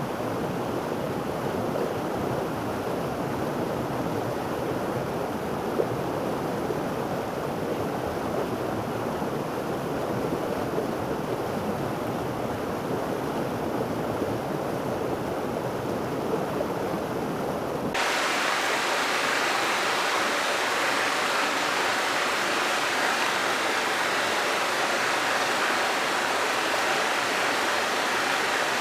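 Steady rush of running water, low and full at first. About two-thirds of the way through it cuts abruptly to a louder, brighter, hissier rush of water.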